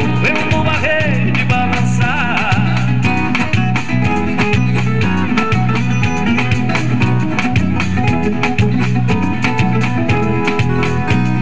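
Sertanejo song played live on an electronic keyboard with a backing rhythm. A male voice holds a wavering note in the first few seconds, then the song carries on as an instrumental passage with bass, chords and a steady beat.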